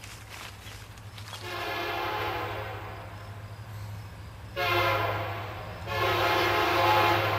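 Union Pacific diesel locomotive's air horn sounding three blasts over a steady low rumble. The second and third blasts nearly run together, and the last is held.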